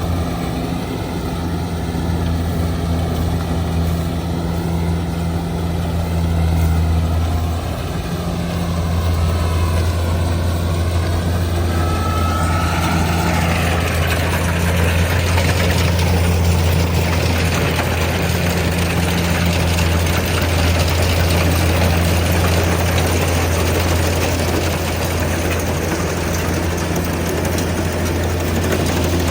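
Kubota DC70G Plus combine harvester's diesel engine running steadily with a deep, even hum. About 13 seconds in, a broader hiss rises over it and stays.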